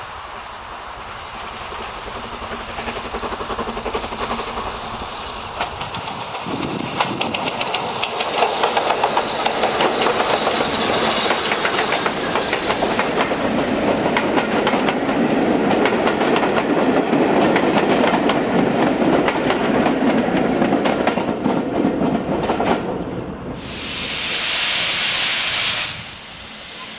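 BR Standard Class 9F 2-10-0 steam locomotive passing with a train, growing louder as it approaches, with wheels clattering over the rail joints as the coaches roll by. Near the end, a steady hiss of steam lasting about two seconds, which stops abruptly.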